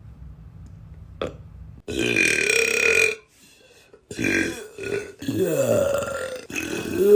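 A person burping loudly several times in a row. The first long burp comes about two seconds in, then three more follow close together, one wavering in pitch and the last still going at the end.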